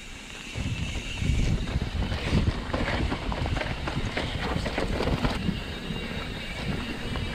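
Mountain bike rolling fast down dry dirt singletrack: rumbling tyres and a dense clatter of short knocks and rattles from the bike over roots and rocks, with wind buffeting the microphone. It gets louder about half a second in.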